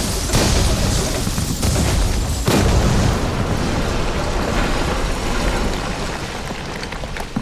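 Bomb explosion sound effect: a heavy rumbling blast with fresh bursts about a third of a second and two and a half seconds in, dying away slowly.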